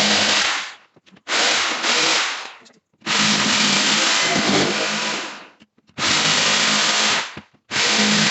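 Electric power tool running in short loud bursts, about five of them, each cutting off abruptly.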